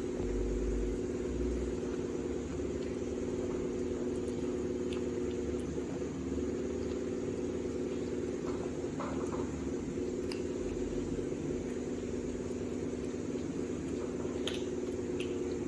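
Steady mechanical hum of a running motor, with a few faint clicks.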